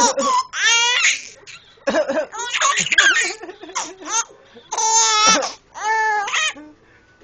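A baby laughing in four or five short, high-pitched bouts, laughing at the sound of someone coughing.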